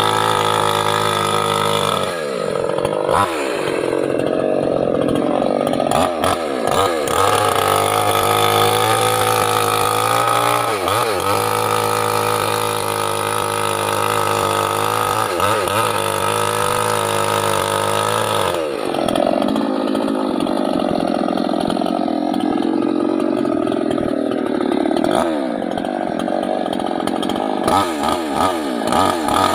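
Small two-stroke petrol mini chainsaw, a Chinese-made Stihl-branded saw, running loud at high revs while cutting teak wood. Its engine pitch dips briefly and picks back up several times, and for a few seconds past the middle it runs lower and wavering, as under cutting load.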